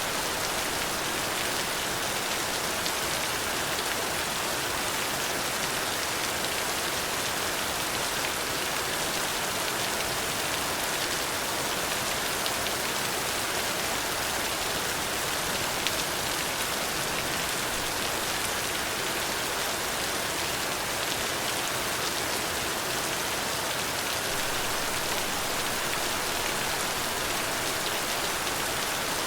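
Steady rain falling on a surface, an even hiss with faint scattered drop ticks.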